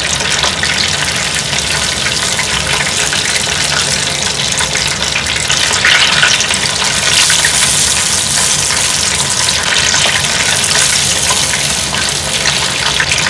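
Chicken karaage deep-frying in a pot of olive oil: a steady, loud bubbling hiss, growing a little louder about six seconds in.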